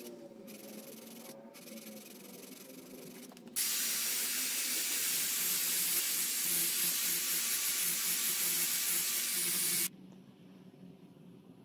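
Cordless drill spinning a felt polishing wheel against a steel knife part held in a bench vise: a steady, loud hiss that starts about three and a half seconds in and cuts off sharply near the end.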